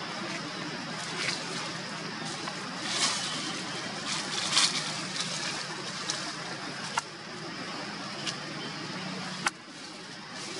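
Steady outdoor background hiss, with brief rustles in the middle and two sharp clicks near the end, the second followed by a slight drop in level.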